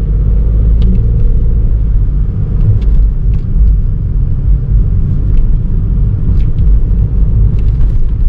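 Steady low rumble of a car being driven, heard from inside the cabin: engine and road noise, with a few faint ticks.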